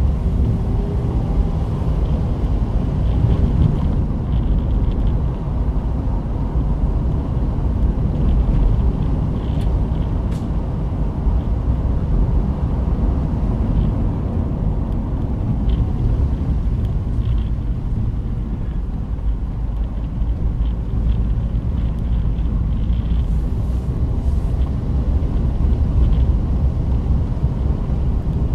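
Car driving along a paved road: a steady low rumble of engine and tyre noise with small swells.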